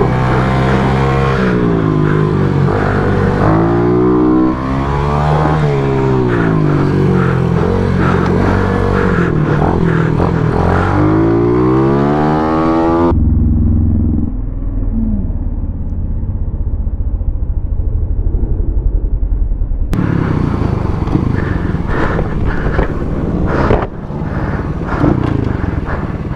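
Pit bike's single-cylinder four-stroke engine revving up and down as it is ridden hard around a tight track, its pitch rising on the straights and dropping into the corners. Several seconds in the middle sound dull and muffled. After that the engine sound turns rougher and noisier, with rattling.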